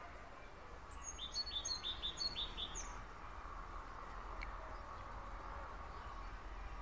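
A small bird singing a quick run of about six short, high chirps about a second in, over a steady low outdoor rumble.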